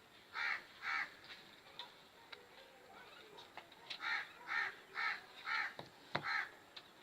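A bird cawing in short, evenly spaced calls: two near the start, then after a pause a run of five. A single knock comes just before the last call.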